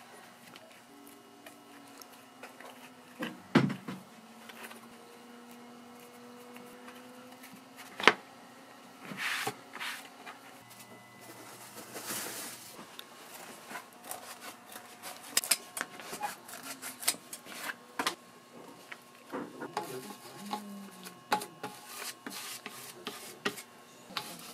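Shoemaker's bench handwork: scattered taps and knocks, one sharp knock about a third of the way in, and short stretches of rubbing and scraping on the materials. Near the end a glue brush dabs and spreads adhesive on cork strips in quick light clicks.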